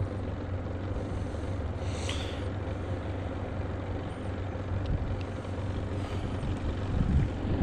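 Steady low motor hum with a faint higher tone running through it.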